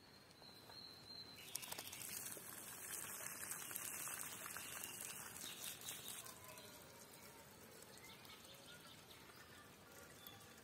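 Parboiled rice and its hot cooking water poured from a pot into a plastic colander, splashing and draining for a few seconds before dying away about six seconds in. Faint bird calls follow.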